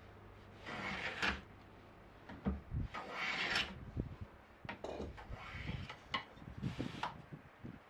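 Metal hand plane cutting a thin wooden strip in a planing jig: a few planing strokes, each a shearing hiss, with short knocks of the plane on the wood between strokes.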